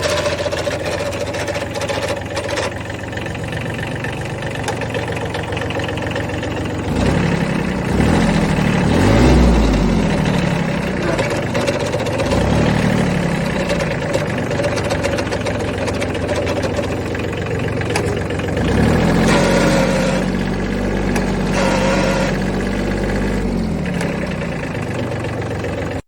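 Kubota B7100 HST compact tractor's three-cylinder diesel engine running with a rattling noise. It is revved up and let back down several times, and once held at higher speed for a few seconds before dropping back to idle.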